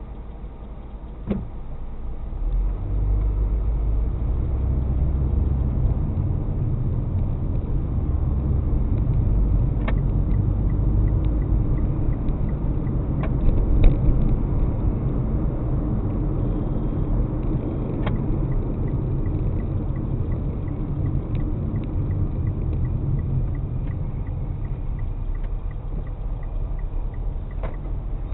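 Car driving, heard from inside: a steady low road-and-engine rumble that grows louder about two seconds in. A few short knocks come through, and in the second half there is a faint regular ticking.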